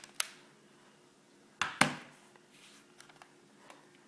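Sony Vaio VPC-Z11 laptop's body and hinges creaking as the laptop is lifted: a few sharp cracks, the loudest pair close together nearly two seconds in, then a few faint ticks. The hinges still creak even though Sony has repaired them three times.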